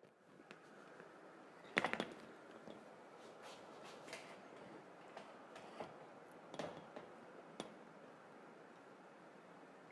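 Faint clicks and knocks as studio lighting gear is handled, loudest in a short cluster about two seconds in and again near seven seconds, over a steady low hiss.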